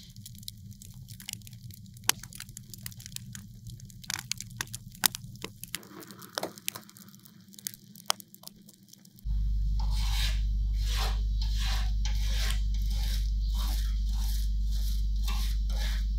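Sharp, scattered crackles from blistered old paint on a Vespa steel body panel. About nine seconds in, a steady low hum starts, and a small hand wire brush scrubs the softened paint off the metal in quick back-and-forth strokes.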